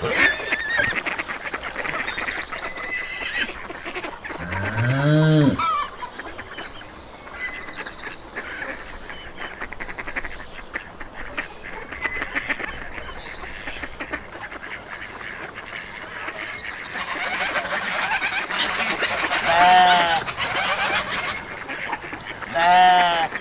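Farmyard animals calling: a few loud honking calls, one rising about five seconds in and two more near the end, over a steady busy background of smaller animal and bird sounds.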